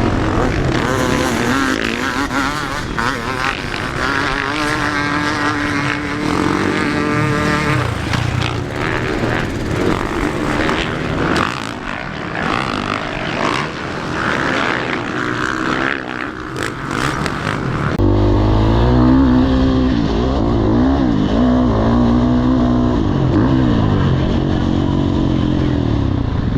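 Four-stroke 450 motocross bike engine revving up and down as it is ridden, under heavy wind and roar on the helmet camera. About two-thirds of the way in the sound cuts abruptly to a closer, deeper engine note that keeps rising and falling.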